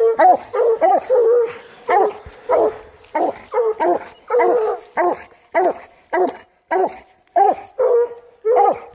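Coonhound barking at a tree in an unbroken run of short, loud barks, about two a second: the tree bark of a hound that has treed a raccoon.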